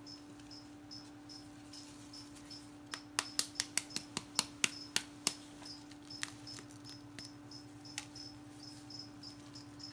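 Incubated pheasant egg being cracked open by tapping its shell with a thin metal ruler: a quick run of about a dozen light clicks over two seconds, then a few single taps. Under it are a faint steady hum and a high chirp that repeats a few times a second.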